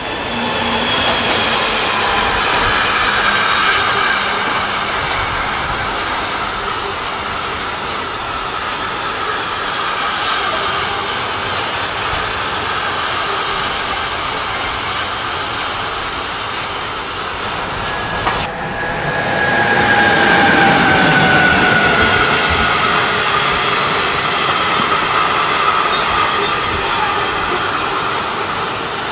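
Electric-hauled container freight train rolling past: a steady rumble of wheels on rail with high whining tones sliding slowly down in pitch. There is an abrupt break about two-thirds of the way through, after which the same rolling noise and whine swell up again.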